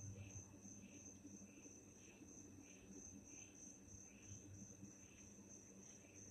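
Night insects calling faintly: a steady high-pitched trill with a lower chirp repeating a little under twice a second, over a faint low steady hum.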